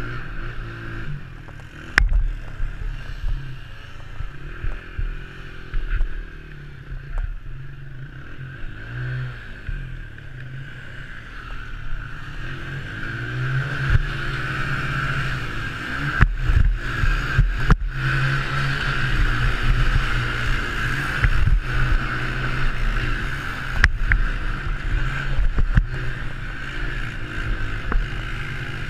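Honda TRX90 mini quad's small single-cylinder four-stroke engine revving up and down as it is raced around a dirt track, heard muffled with wind rush. Sharp thuds from bumps and landings come about two seconds in, several times around sixteen to eighteen seconds, and again near twenty-four seconds.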